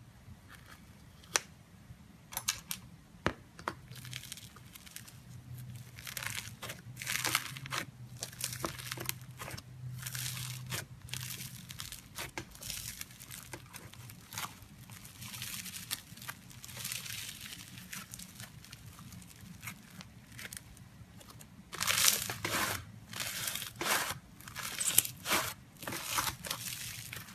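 Slime being squeezed and stretched by hand, giving off irregular crackles, crunches and sharp pops, with a denser, louder run of them near the end.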